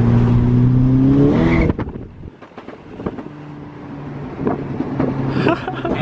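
Mk6 Volkswagen GTI's turbocharged four-cylinder engine, heard from inside the cabin, climbing in revs under acceleration for about a second and a half. The throttle then lifts and the engine drops off with a string of sharp crackles from the exhaust on overrun, the pops-and-bangs of its stage 2 tune with downpipe. From about three seconds in, the engine settles back to steady running.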